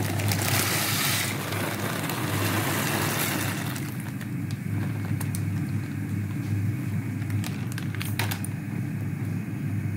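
Dry elbow macaroni poured into a pot of boiling water, a loud rushing hiss for about the first second and a half, then the water boiling steadily over a low hum, with a few clicks of a wooden spoon against the pot as the pasta is stirred.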